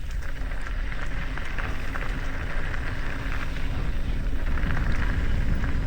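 Mountain bike rolling over a rough dirt trail: steady rumble from the tyres and frame, with many small rattles and clicks, and wind rushing over the microphone.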